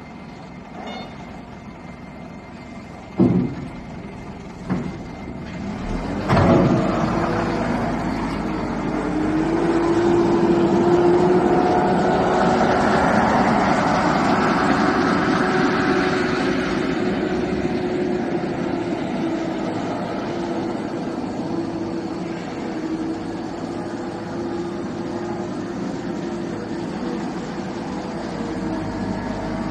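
Skid steer loader's engine: a few sharp knocks, then it starts about six seconds in with a loud clunk, picks up speed a few seconds later and runs steadily.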